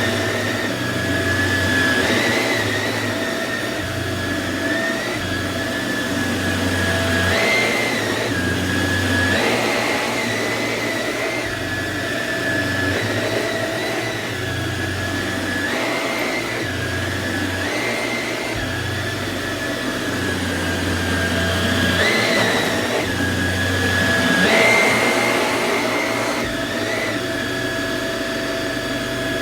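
Samsung CycloneForce upright vacuum running on carpet. Its motor whine keeps steady, then jumps briefly higher in pitch again and again with a rush of air.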